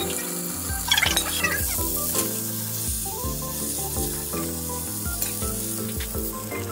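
Meat-wrapped okra roll sizzling in a frying pan in its sauce as it is turned with chopsticks, with a few knocks about a second in, over background music.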